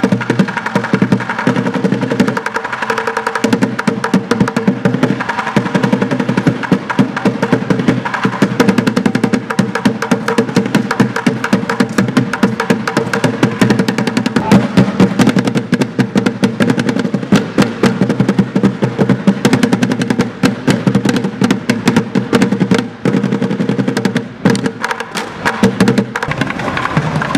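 Street drummer playing overturned plastic buckets with sticks: fast, continuous rolls and rapid strokes, with a couple of brief pauses near the end.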